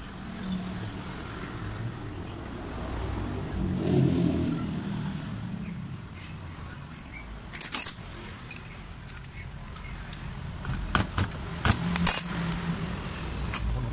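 Small metal parts of a diesel injection pump clinking and tapping against the pump body and steel workbench as it is reassembled by hand: one sharp clink near the middle and a quick cluster of clinks near the end. A low background rumble swells and fades about four seconds in.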